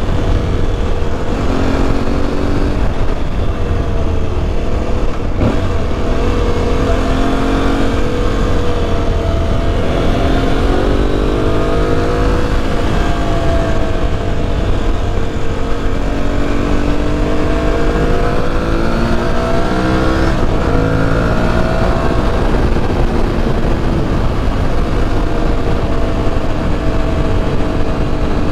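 Aprilia Tuareg 660's parallel-twin engine running under way, its pitch rising and falling with throttle and gear changes, over a steady rumble of wind and road noise.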